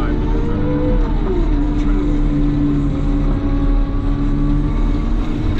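Cat loader's diesel engine running while working, its pitch rising and falling once in the first second or so and then holding steady.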